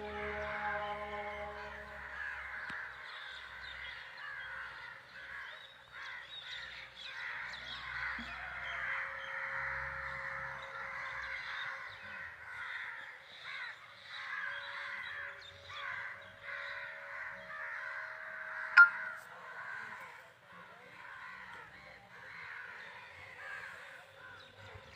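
A large flock of birds calling over one another without pause, a dense chatter of short calls. A single sharp click cuts through it about 19 seconds in.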